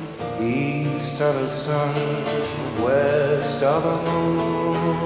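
Live pop band playing, with guitar and sustained melody notes.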